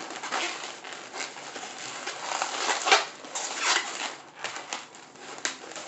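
Inflated latex 260 modeling balloons rubbing and squeaking against each other and against the hands as they are twisted and pressed into a flower shape, in irregular strokes that are loudest about three seconds in.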